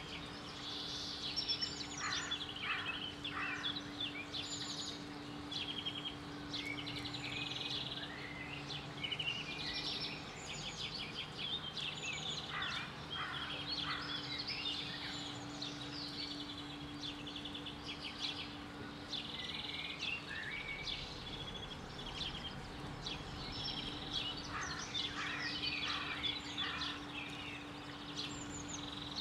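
Several birds chirping and singing, with quick repeated chirps and trills. A faint steady hum comes and goes in the background.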